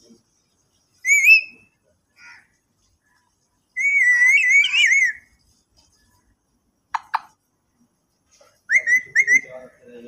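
Alexandrine parakeet whistling in short, wavering, warbling calls: a brief whistle about a second in, a longer warbling whistle around four to five seconds, two sharp falling chirps near seven seconds, and a quick run of short whistles near the end.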